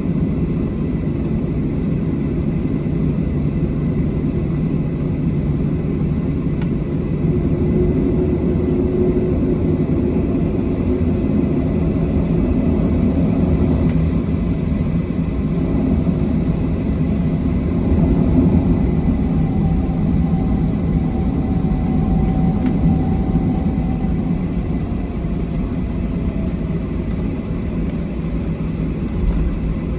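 Steady cabin noise inside a Boeing 737-700: the drone of its CFM56-7B jet engines and the rush of air, a deep even rumble, with a faint higher tone wavering in and out about two-thirds of the way through.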